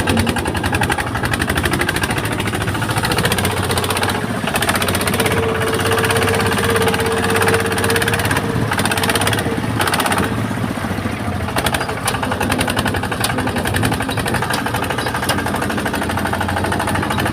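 Engine of a rice-harvesting machine running steadily, with a fast, even clatter. A steady higher hum joins in for a few seconds in the middle.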